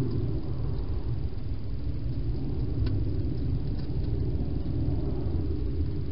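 Wild hedgehog feeding from a dish inside a plastic feeding box, with two faint sharp clicks about three and four seconds in, over a steady low rumble.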